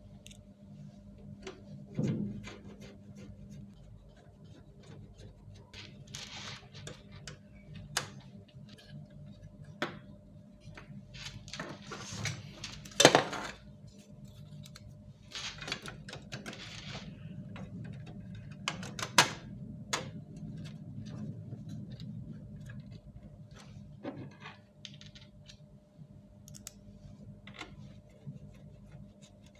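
Hands handling the plastic and metal parts of an HP LaserJet Pro 400 laser printer while its fuser unit is swapped: scattered clicks, scrapes and rustles, with a sharp knock about thirteen seconds in and another about nineteen seconds in, over a faint steady hum.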